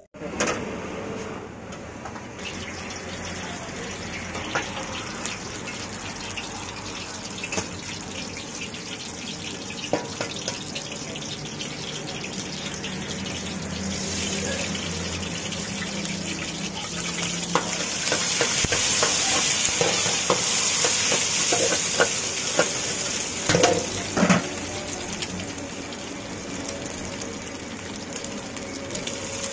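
Hot oil sizzling and crackling in an iron wok, with beaten egg frying in it by the end. The sizzle grows louder in the second half, and there are a few sharp knocks about two-thirds of the way through.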